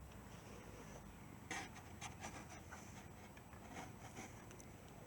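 Faint rubbing and a few soft clicks of small metal parts being handled, as the loosened oil strainer cap is taken off the scooter's engine by hand, with clicks about a second and a half in and again around two and four seconds.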